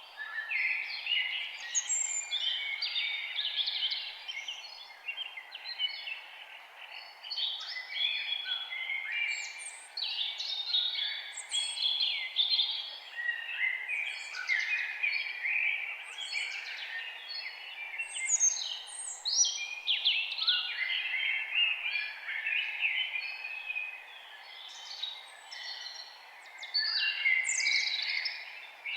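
Several songbirds singing at once in a chorus of rapid chirps, trills and high downward-sweeping notes, over a steady low background hiss.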